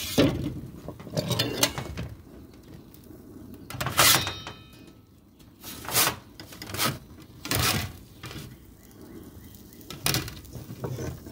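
Metal pizza pans and a metal pizza peel knocking and clattering against a stainless steel counter as they are moved about: a string of separate clanks, one about four seconds in ringing briefly like struck sheet metal.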